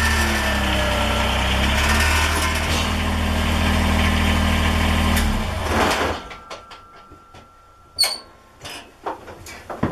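Kubota compact tractor's diesel engine running steadily, then shut off about five seconds in. Afterwards a few light clicks and knocks, with one sharper click about eight seconds in.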